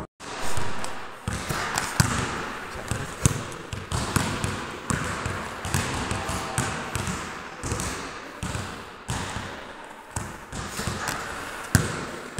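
A basketball bouncing and thudding repeatedly in an echoing indoor sports hall, about every half second, with a louder crash just after the start.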